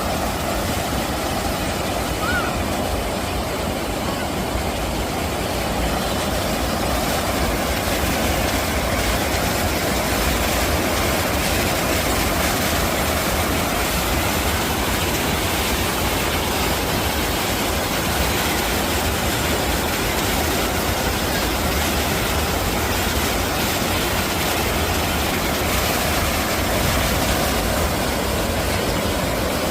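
Mountain stream water rushing steadily, a continuous even noise with a low rumble.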